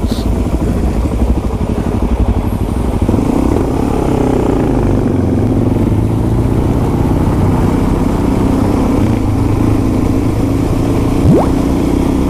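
Dual-sport motorcycle engines running at riding speed, heard from the rider's own bike with steady wind rush. The engine note dips and climbs again about four seconds in, and there is a short, sharp rising whine near the end.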